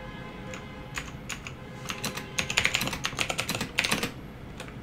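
Typing on a computer keyboard: a quick run of key clicks, sparse at first and densest from about two to four seconds in.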